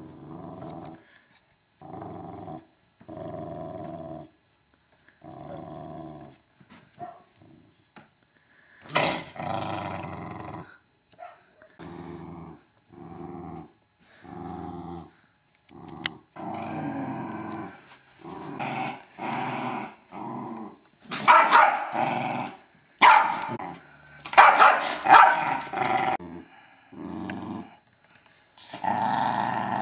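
American Eskimo dog play-growling in repeated bouts of about a second each, growing louder with barking in the second half. It is the mock aggression of a play-fight game, not real hostility.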